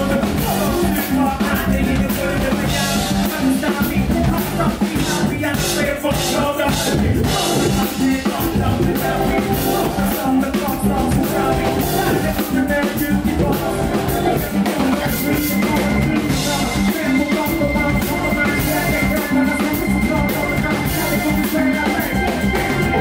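Live hip-hop band playing with a drum kit, bass guitar and keyboards under rapped and sung vocals. A thin steady high tone is held through the second half.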